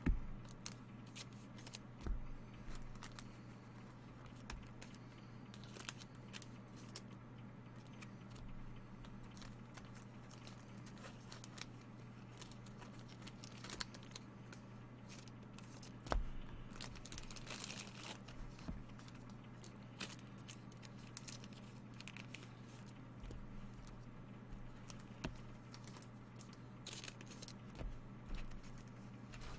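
Trading card packs and wrappers being torn and crinkled open and cards handled, with scattered light clicks and taps, the sharpest near the start, about two seconds in and about halfway through, over a steady low hum.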